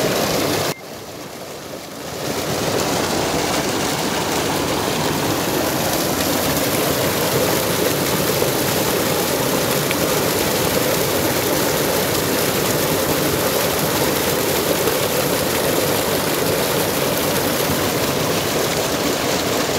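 Tubewell outlet pipe pouring a heavy, steady gush of water into a concrete tank, splashing and rushing. The sound drops briefly about a second in, then comes back at full strength.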